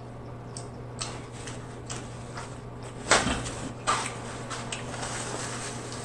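Close-up eating sounds: chewing and lip smacking with scattered wet clicks, and two louder smacks about three and four seconds in, over a steady low hum.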